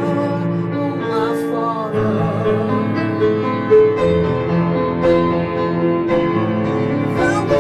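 Music: a slow passage of sustained keyboard chords that change about every two seconds.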